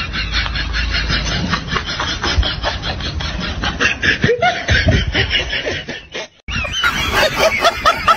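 People laughing in a long run of quick snickering bursts. It breaks off about six seconds in, and after a brief silence higher-pitched laughter starts again.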